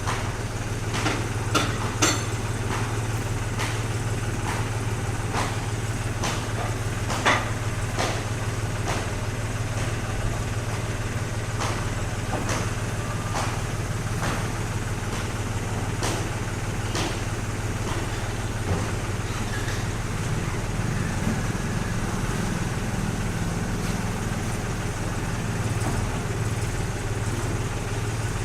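Truck engine idling steadily, with scattered sharp knocks at irregular intervals. The engine note rises a little about twenty seconds in and drops back a few seconds later.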